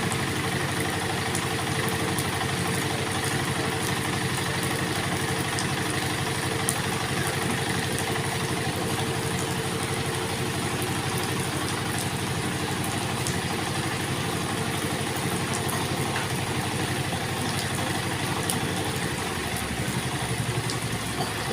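Circular saw running steadily with its blade spinning free, not cutting.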